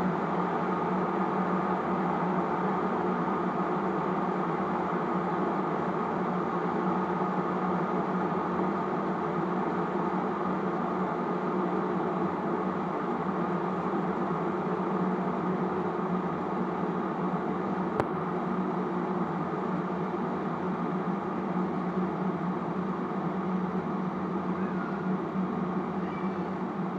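Steady, unchanging mechanical running noise with a constant hum, broken once by a single sharp click about two-thirds of the way through.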